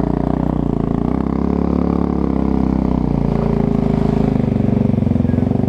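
Motorcycle engine running steadily under load while the bike is ridden through a ford that is deeper than the rider expected.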